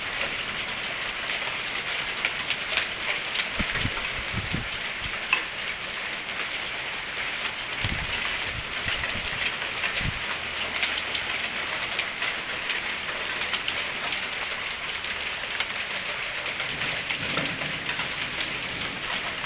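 Hailstorm with rain: a steady hiss of falling rain with many sharp ticks of hailstones striking hard surfaces.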